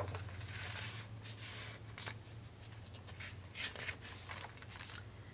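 Paper and cardstock pages of a wire-bound junk journal rustling softly as a tucked-in card is lifted and a page is turned, with a steady low hum underneath.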